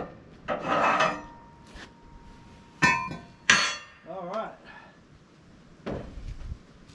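Hand work at a portable sawmill bed with the engine off: a scraping rub, then a few sharp knocks of metal and wood, two of them loud and ringing about three seconds in. A brief wavering tone comes just after them.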